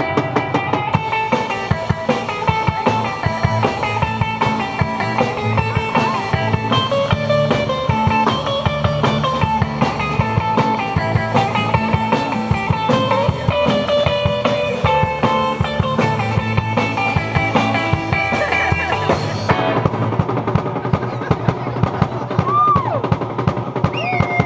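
Live rock band playing: electric guitars, bass guitar and drum kit together. Near the end the cymbals drop out and the sound thins, with a few bending guitar notes.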